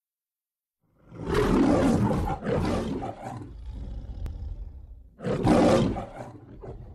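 The MGM logo lion roaring: a long loud roar starting about a second in, breaking into a shorter second phrase and fading, then after a pause a second loud roar with a brief grunt near the end.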